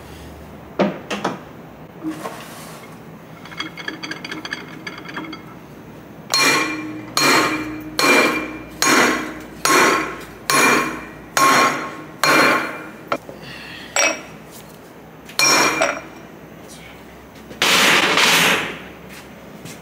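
Hammer blows on a steel driver tube, seating the clutch assembly in a Twin Disc MG509 marine gearbox. About eight ringing metal strikes come in a steady run, roughly one every 0.8 seconds, then two more spaced out and a longer, louder clatter near the end.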